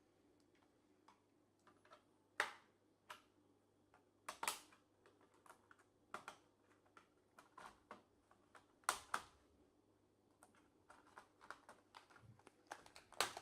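Scattered plastic clicks and taps from a laptop keyboard being pried at and pressed while it is worked free of its clips, with a few sharper snaps among the small ticks and a quicker run of clicks near the end.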